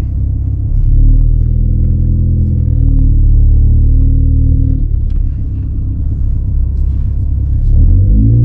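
Ford Focus ST's turbocharged 2.0-litre four-cylinder running under way through a Roush aftermarket exhaust, a loud low drone. It eases off about five seconds in, then climbs in pitch as the car accelerates near the end.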